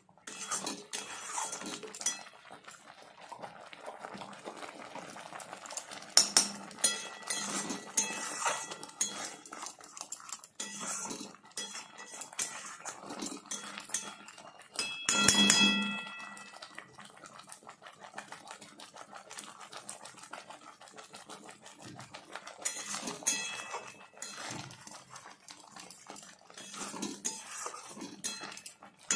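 Metal spatula scraping and stirring a thick leafy saag paste cooking in a metal kadai, with frequent clicks of the spatula against the pan. A short animal call cuts in about halfway through.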